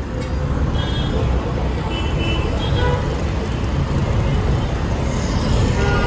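Road traffic noise: a steady, loud low rumble of vehicles, with a few faint short high-pitched tones here and there.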